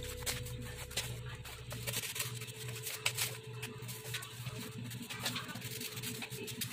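Scissors snipping through paper, with paper rustling as the printed cutout is turned: a string of short irregular clicks over a steady low hum.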